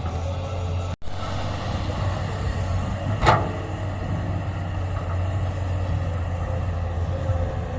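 A heavy diesel engine of construction machinery running steadily, with a sharp clank about three seconds in. The sound drops out for an instant about a second in.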